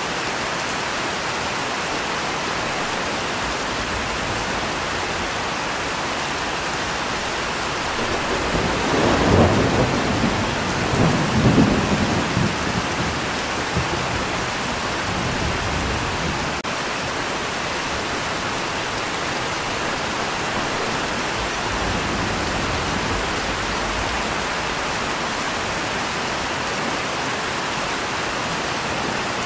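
Steady rain falling, with a roll of thunder that swells about a third of the way in, peaks twice in quick succession and rumbles away over a few seconds.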